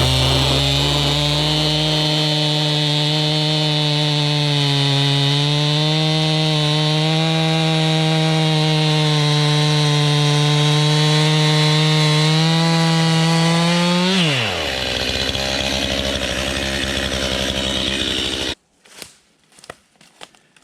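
Two-stroke chainsaw running at high revs with a steady, slightly rising note. About fourteen seconds in the throttle is released and the revs drop sharply; it runs on lower until the sound cuts off abruptly near the end.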